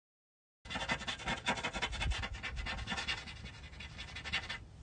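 Marker tip scratching rapidly against a surface, a dense run of scratchy strokes that starts about half a second in and dies down shortly before the end.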